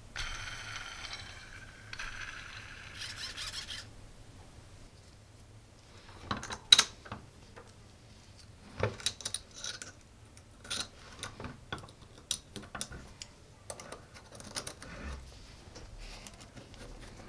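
Small aluminium robot-chassis parts and plastic gears being handled and fitted by hand: scattered sharp clicks and light knocks of metal and plastic, with a few small screwdriver-and-bolt sounds near the end.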